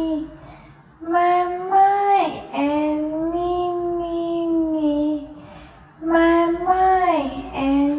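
A high voice singing a short phrase of long held notes, likely the words "me, me, me". The phrase plays twice. Each time, the first note slides sharply downward, then a long note is held for a couple of seconds.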